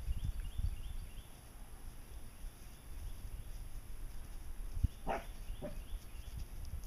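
Outdoor field ambience with low rumbling and thumps, a bird chirping a quick run of short falling notes in the first second, and two short animal calls about five seconds in.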